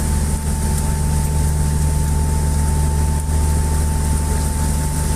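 A boat's inboard engine running steadily at constant speed, a low even drone with a thin steady whine above it.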